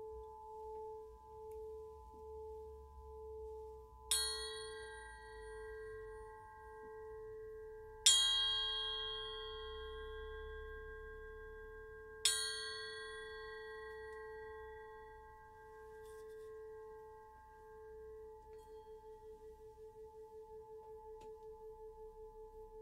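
A clear crystal singing pyramid is struck three times with a mallet, about four seconds apart. Each strike sets off a bright ring that fades over a steady hum that pulses slowly. Near the end the pulsing quickens.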